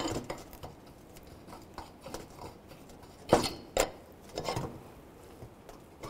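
Steel brake caliper slider pin being worked in and out of its bore in the caliper bracket, giving a few sharp metal clicks and scrapes, the loudest two just past the middle. The pin binds in the bore instead of sliding smoothly, probably from rust still left on the pin.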